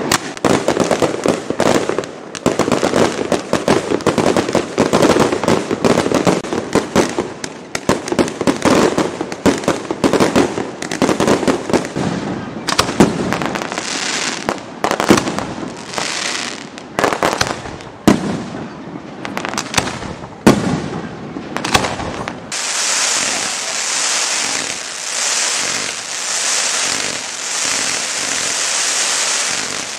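Fireworks display: a rapid barrage of shell bursts and crackling. About two-thirds of the way through it gives way to a steady high hiss that swells and fades about once a second.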